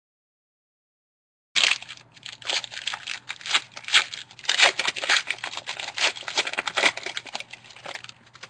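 A trading-card pack's foil wrapper being torn open and crinkled in the hands, a dense run of irregular crackling that starts about a second and a half in after a dead-silent gap.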